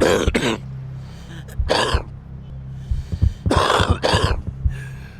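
A person coughing in harsh fits: a double cough, a single cough, then another double cough, presented as a smoker's cough.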